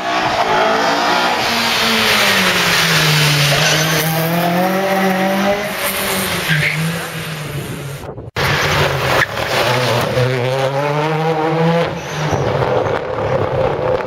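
Rally car engines at full throttle, the engine note climbing and dropping again and again through gear changes. One car is heard, then after a sudden cut about eight seconds in, a second car does the same.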